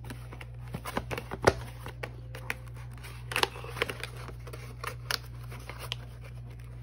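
Cardboard box of a diamond-painting kit being handled and slid open on a stone countertop: scattered clicks, taps and scrapes of cardboard, the sharpest about one and a half seconds in.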